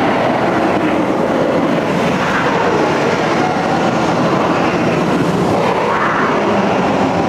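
Steady, loud rumbling noise in a dark ride's dinosaur scene, with no clear speech or music.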